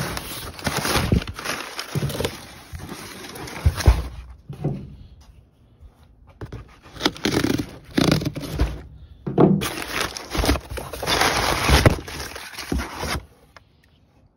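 Crumpled packing paper rustling and crinkling, with cardboard boxes scraping and knocking as they are dug through and pulled about. It comes in irregular bursts, eases off for a couple of seconds in the middle, and stops about a second before the end.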